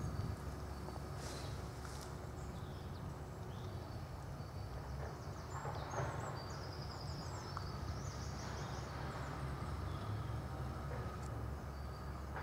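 Outdoor ambience: a steady low wind rumble on the microphone, with a small bird chirping in short trills a few times.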